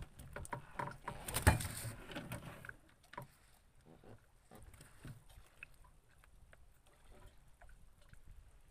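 Knocks and thumps in a small wooden fishing boat as a freshly landed red snapper is put down in the hull and the longline handled: one loud thump about a second and a half in, then scattered light knocks and clicks.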